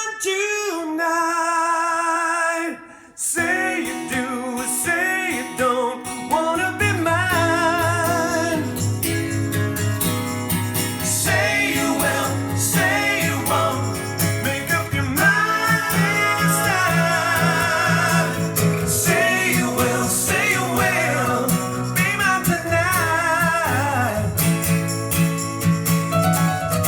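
A song with a male-sounding sung vocal and guitar, played back through Bowers & Wilkins CM6 S2 loudspeakers; a bass line comes in after a short break a few seconds in.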